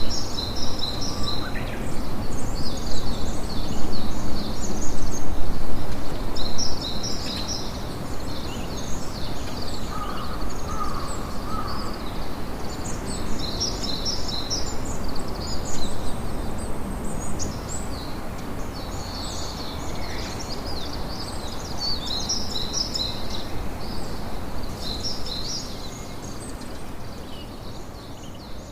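Campfire crackling steadily, with small birds chirping in short high bursts every few seconds.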